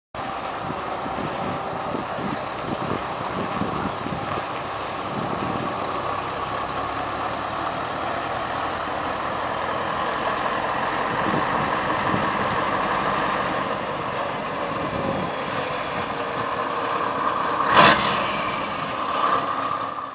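Scania 143 tractor unit's V8 diesel engine running as the truck drives along the road, a steady engine note that grows gently louder toward the middle. A short, sharp hiss-like burst cuts in near the end.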